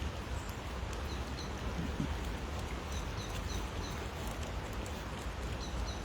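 Steady hiss of falling rain, with faint, short, high chirps of small birds repeating now and then.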